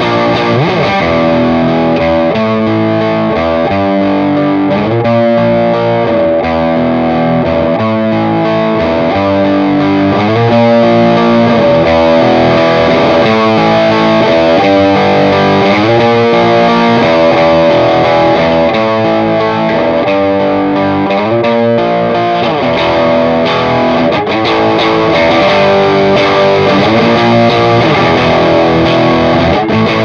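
Electric guitar playing an overdriven riff through a Tech 21 Double Drive overdrive pedal, with sustained chords and notes and repeated slides in pitch.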